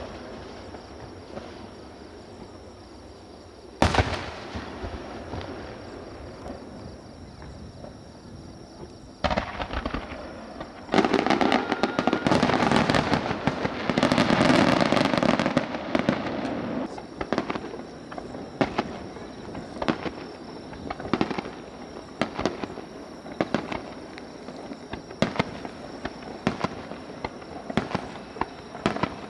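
Fireworks display: a loud shell burst about four seconds in and another about nine seconds in, then about five seconds of dense, overlapping bursts and crackling, the loudest part. After that come scattered sharp pops.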